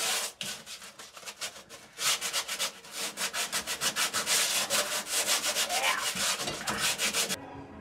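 Drywall sandpaper rubbed by hand over the rusty sheet-steel cab floor pan around the pedals of a 1972 Chevy C10, in rapid back-and-forth strokes. The strokes ease off about half a second in, pick up again about two seconds in and stop shortly before the end.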